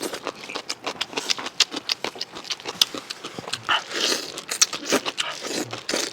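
Close-up eating sounds: a rapid run of wet mouth clicks and smacks as someone chews food.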